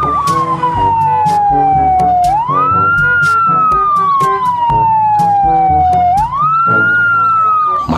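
Fire engine siren wailing: its pitch falls slowly for about two seconds, then sweeps quickly back up, twice over. Fainter background music runs under it.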